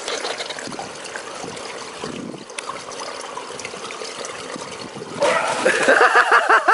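Swimming-pool water lapping and trickling, then about five seconds in a loud splash as water is thrown up at the pool's edge, followed by a person laughing in quick, repeated syllables.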